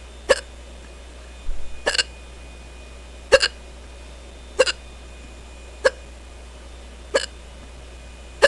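A woman hiccuping over and over, short sharp hiccups coming in a steady run about once every second and a quarter, some with a small catch of breath just after.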